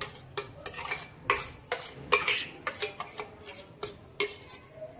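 A spoon clinking and scraping against a bowl in sharp, irregular taps, two or three a second, as spice pastes are worked into a gram-flour batter.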